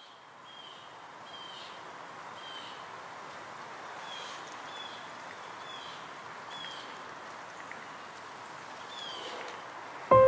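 Outdoor nature ambience fading in: a bird repeating a short, high, slightly falling chirp about once a second over a steady background hiss.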